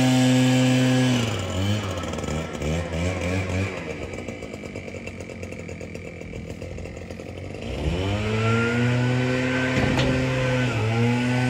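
Small two-stroke engine of handheld lawn equipment running at full throttle, then dropping to a lower, wavering idle about a second in. About two-thirds of the way through it revs back up and holds high, with a brief dip near the end.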